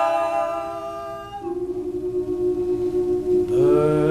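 Male a cappella group holding a sustained vocal chord that fades away; about a second and a half in, a single steady note holds on alone, and near the end the other voices swell back in, gliding up into a new chord with a low bass note underneath.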